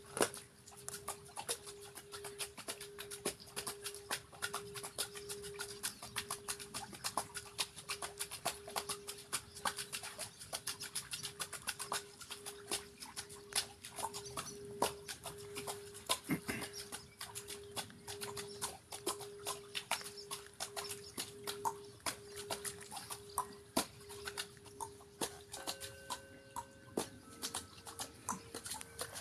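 A singing bowl rubbed around its rim, holding one steady ringing tone that swells and fades in a slow pulse. Over it come irregular splashes and drips of water played by hand in the washhouse basin. Near the end a second, higher bowl tone joins in.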